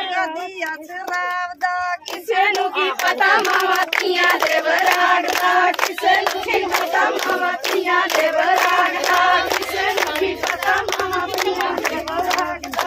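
Group of women and girls singing a Punjabi boli in chorus, with steady rhythmic hand clapping for giddha. About two seconds in, the chorus grows louder and the clapping fuller.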